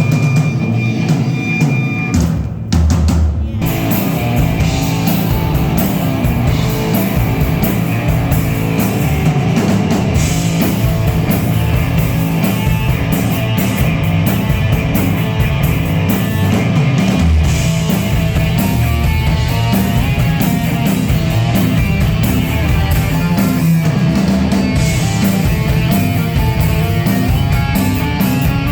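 Rock band playing loudly at a sound check: drum kit and guitar, with a brief drop about two and a half seconds in before the full band comes back in.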